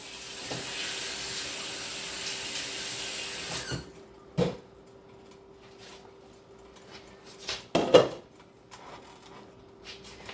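Dishes and cookware being handled in a kitchen: a steady hiss for the first few seconds, then sharp knocks and clatter about four and eight seconds in. A faint steady hum runs under it all.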